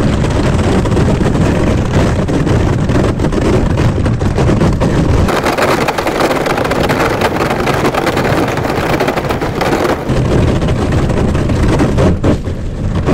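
Hobie Pro Angler 12 kayak's plastic hull being pedalled through thin pond ice, the sheet cracking and crunching continuously, over a low wind rumble on the microphone.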